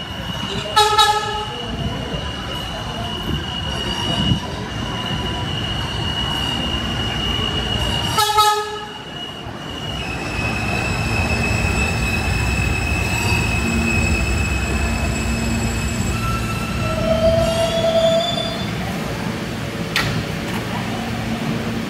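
New York City subway train running with a steady high-pitched whine, sounding two short horn blasts: one about a second in and another about eight seconds in.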